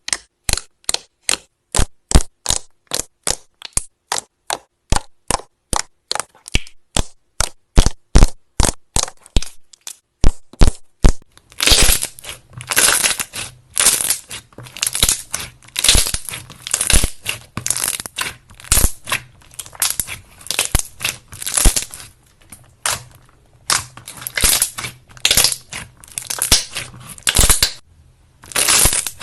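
Slime being worked by hand close to the microphone: first a quick, even run of sharp pops, about three a second, then from about a third of the way in, longer crunching squeezes roughly once a second.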